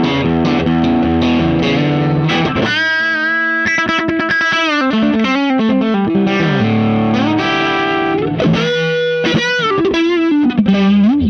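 T-style electric guitar played through a Space Sounds Meteor Distortion pedal on its overdrive setting, into a Ceriatone OTS Mini 20 amp head. It plays overdriven chords for the first few seconds, then a single-note lead line with string bends and vibrato, stopping abruptly at the end.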